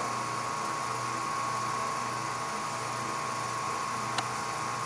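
Graziano SAG 20 lathe running with a steady mechanical hum and a constant whine, with one sharp click about four seconds in.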